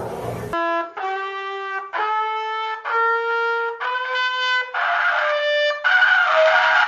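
Slide trombone playing a slow run of about eight separate held notes, each about a second long, climbing step by step in pitch.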